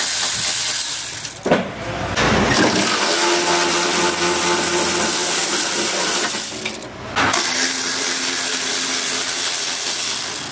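Cordless ratchet running as it spins out 10 mm fender bolts, in three spells with short breaks about two seconds in and again about seven seconds in.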